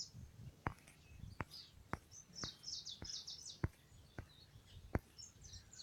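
Faint birds chirping in short high bursts, with a run of soft clicks about every half second.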